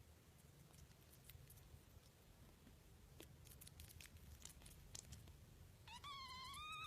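Near silence with a few faint clicks, then about six seconds in a kitten gives one long, wavering meow.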